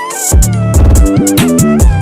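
Music: a violin-like melody over a heavy electronic beat with deep bass and sharp hand-clap or snare hits.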